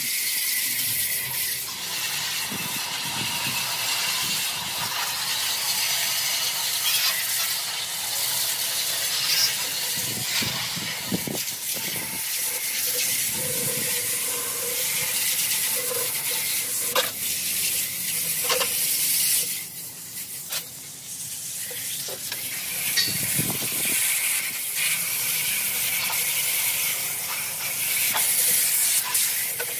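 A jet of water from a garden-hose spray nozzle hissing steadily as it rinses the coil fins and the inside of an air-conditioner condensing unit, easing off for a couple of seconds about two-thirds of the way through.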